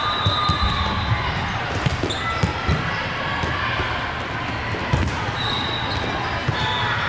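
Irregular dull thumps, about one or two a second, over a murmur of voices.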